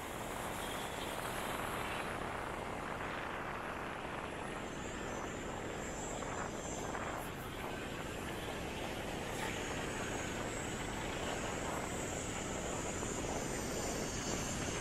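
Steady road noise from the back of a moving motorbike in city traffic: the bike's engine and the rush of air and tyres blended with the surrounding cars.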